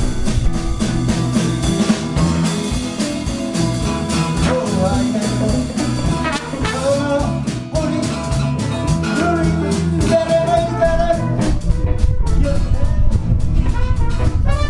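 Live blues band playing: drum kit, electric bass, guitars and keyboard, with a trumpet taking a melodic line.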